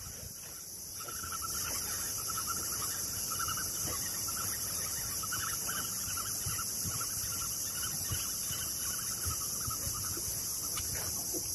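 Steady, high-pitched drone of an insect chorus, with a fainter pulsing trill in a lower register joining about a second in and fading out near nine seconds.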